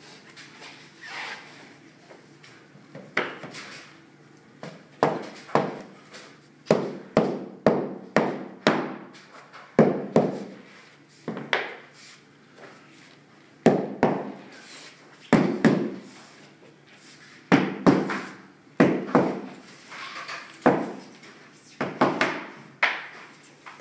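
Repeated sharp knocks on a hardwood floor board, often in quick runs of two to four, as the glued replacement board is tapped down into place.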